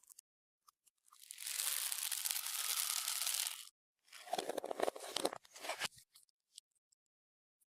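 Slime-mixing handling sounds: a steady hissing rustle for about two and a half seconds, then a couple of seconds of crackling and clicking.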